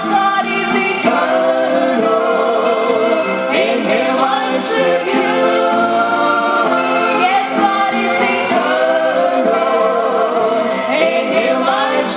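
Gospel vocal group singing together in harmony, several voices with vibrato.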